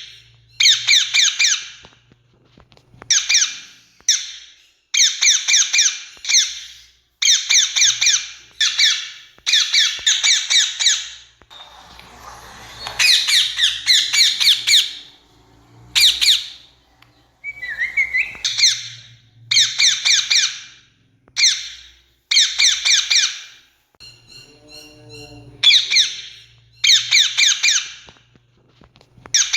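Rose-ringed (Indian ringneck) parakeet calling: bursts of shrill, harsh squawks, several quick notes at a time with short pauses between, and a longer, denser run of calling about 12 to 15 seconds in.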